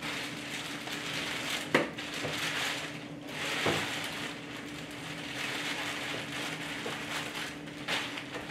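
Clear plastic protective bag crinkling and rustling as it is pulled off a benchtop turbidimeter, with a couple of sharper crackles about two and four seconds in.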